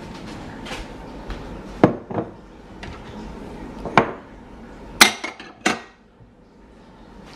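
Dishes and utensils clattering as they are handled: about half a dozen separate sharp knocks and clinks, the loudest about two and five seconds in.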